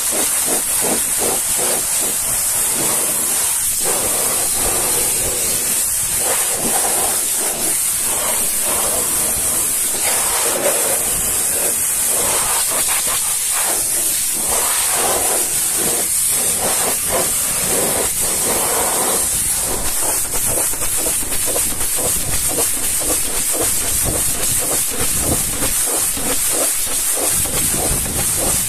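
High-pressure washer jet hissing steadily as it blasts water against a truck's tyre and aluminium wheel rim, the spray noise flickering as the lance moves over the wheel.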